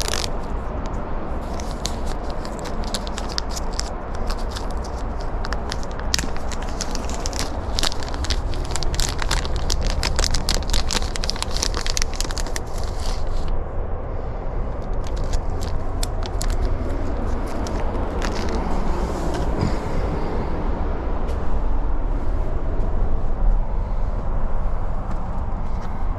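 Dense, irregular crackling and scraping from handling small parts and tools for roughly the first half, then softer rustling, over a steady low rumble.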